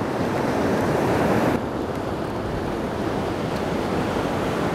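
Ocean surf breaking and washing up a sandy beach, a steady wash of noise with wind on the microphone. The sound turns duller about a second and a half in.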